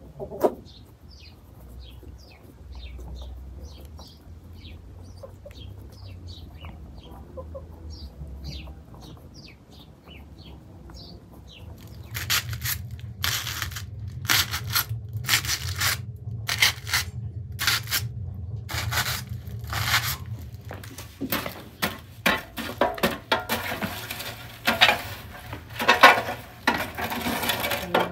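Birds chirping faintly, a short falling call repeated over and over. About twelve seconds in, food-preparation sounds start: rasping, knocking strokes about once a second over a low hum, turning busier and more continuous in the second half.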